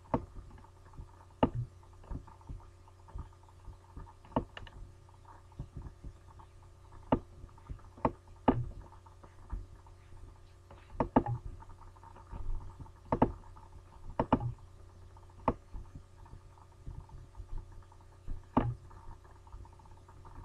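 About a dozen sharp, irregularly spaced clicks of a computer mouse as files are dragged between folders, over a steady low electrical hum.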